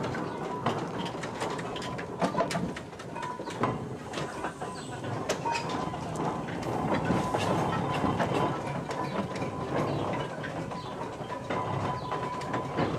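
Steam traction engine driving slowly on the road, its gearing and motion clanking with many irregular clicks, iron-rimmed wheels rolling on tarmac.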